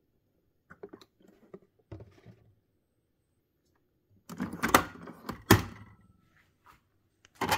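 A Nespresso machine's capsule lever being worked by hand: a few light clicks, then two loud plastic-and-metal clunks under a second apart about halfway through, and another clunk near the end.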